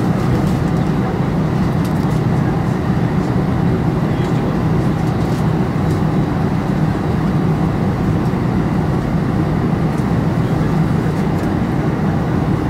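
Steady low rumble of an Airbus A320's jet engines at low power, heard from inside the passenger cabin.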